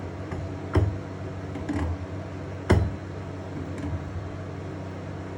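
Tools and fittings knocking during work on a sink shutoff valve: a sharp knock a little under a second in, a softer clatter about a second later, and a louder sharp knock before the three-second mark, over a steady hum.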